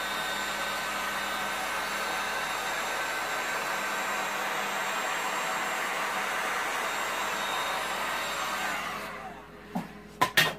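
Heat gun blowing steadily with a faint whine of its fan motor, warming the poured resin, then switched off about nine seconds in. A few sharp clicks follow near the end.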